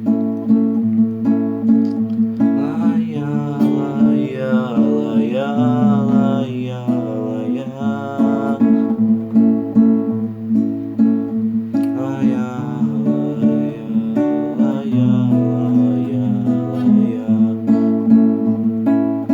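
Acoustic guitar strummed in a steady chordal accompaniment, with a voice singing a wordless melody twice over it.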